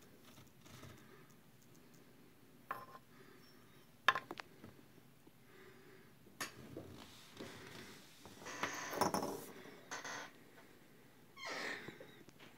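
Small metal wheel rim for a model truck being handled on a tabletop: a few sharp light metallic clicks and taps, then longer scraping and rustling handling noise in the second half.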